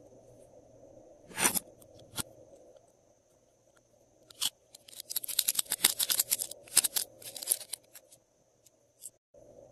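Metal lipstick cases and caps clicking and clinking as they are handled: two sharp clicks in the first couple of seconds, then a dense run of quick clicks lasting about three seconds.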